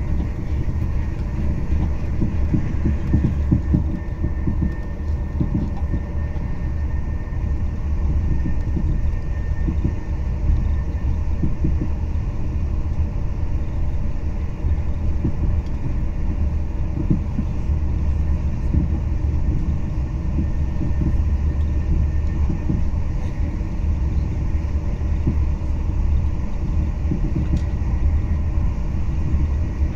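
TGV InOui high-speed train running, heard from inside a passenger car: a steady low rumble of wheels on rail with faint irregular knocks, and a faint high whine over the first dozen seconds or so.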